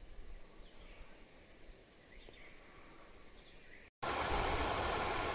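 A few faint bird chirps over quiet outdoor wind hum, then, after a sudden cut about four seconds in, a loud steady rush of a stream pouring over a small weir.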